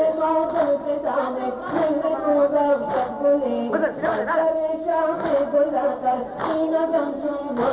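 Male reciter chanting a Shia noha lament in Dari, punctuated by rhythmic chest-beating slaps (matam) from the mourners about once a second.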